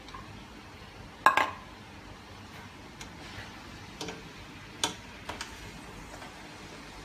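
Sharp metal clanks of a steel bowl and a spatula knocking against a metal wok as beetroot is tipped in and stirred into cabbage. The loudest clank, a double knock, comes about a second in, followed by a few lighter knocks.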